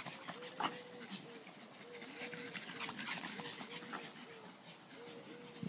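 Small dogs playing: soft whimpering and scuffling, with short mid-pitched calls repeating at a steady pitch.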